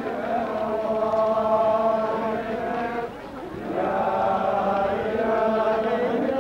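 Many men's voices chanting an Islamic religious chant in unison, on long drawn-out notes. They break off briefly about halfway through and then take up the chant again.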